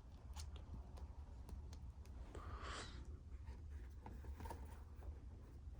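Faint clicks and taps of trading cards being handled and sorted, with a brief sliding rustle about halfway through, over a low steady hum.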